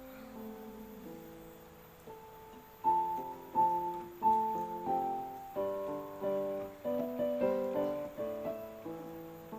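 Background piano music, a melody of separate struck notes that each fade. It is soft at first and grows louder about three seconds in.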